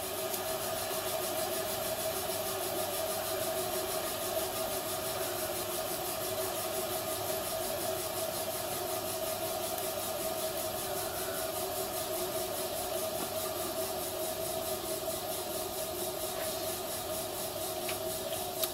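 Steady mechanical hum with two low steady tones over a hiss. A couple of faint clicks come near the end.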